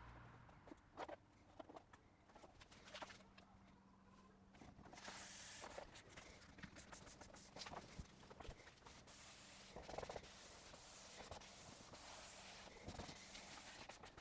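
Near silence, with faint scattered clicks and taps over a low hum and soft hiss.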